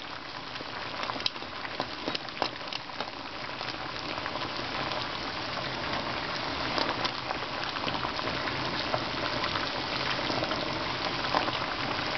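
Water boiling hard in a saucepan, a steady bubbling hiss, with a few sharp clicks of metal tongs against the pan and the ping pong balls.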